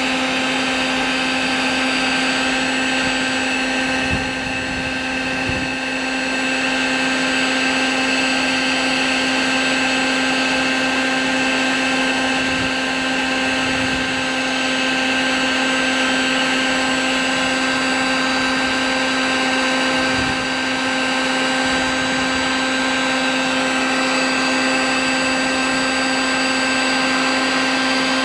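Harbor Freight heat gun running steadily, its fan blowing with a constant whine as it melts plastic to weld a patch onto a plastic kayak hull.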